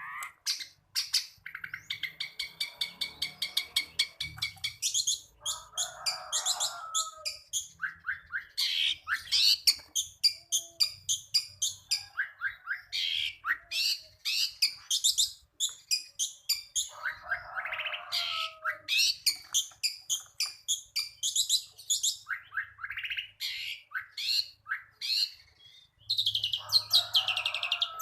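Long-tailed shrike (cendet) singing a fast, varied song of chirps and trills, a mimicked medley of other birds' songs, broken three times by a harsh rasping note.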